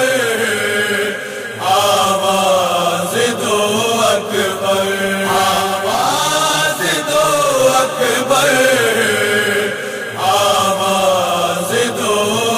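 A male voice singing an Urdu nauha, a Shia lament, in long drawn-out phrases that rise and fall in pitch, over a steady low tone.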